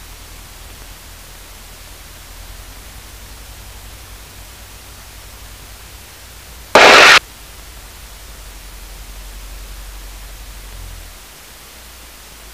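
Steady hiss with a faint low hum, from the aircraft's headset intercom feed with no one talking, the engine not heard through it. About seven seconds in comes a single loud rush of noise lasting about half a second, and the low hum drops out near the end.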